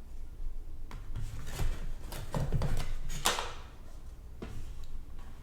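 Items in a cardboard retail box being handled and lifted out: a light click about a second in and a short, sharper knock with a rustle a little over three seconds in.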